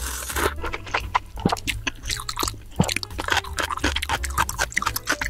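A person slurping ramen noodles in a burst at the start, then chewing the mouthful with many wet clicks and small crunches, picked up close by the microphone. Soft background music runs underneath.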